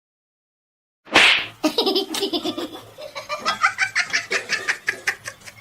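About a second of dead silence, then a sudden loud burst and a person laughing hard in quick, rapid pulses that trail off near the end.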